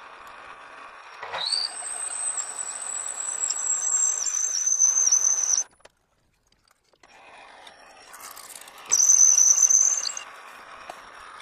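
A 1-inch drill bit in a metal lathe cutting into round bar stock, squealing at a high pitch over the running lathe. The squeal breaks off abruptly about halfway through, and a shorter burst of squeal comes back near the end.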